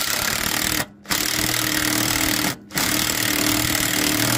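Power tool running down the nut on a repaired, welded turbocharger band clamp, in three runs with brief pauses between them and a steady hum under the noise.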